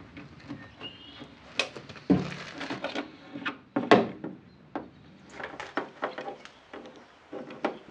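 Handling noise as a round plastic LED lamp is fitted against a Land Rover's front wing: irregular clicks, knocks and scrapes, the loudest about two and four seconds in.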